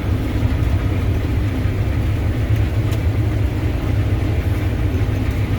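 Combine harvester running steadily while harvesting wheat: a constant low engine drone with a broad machine hum over it.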